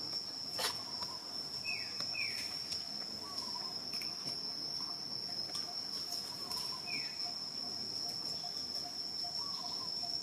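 Steady, high-pitched drone of an insect, one unbroken tone, with a few short falling chirps at about two seconds and seven seconds in and a sharp click about half a second in.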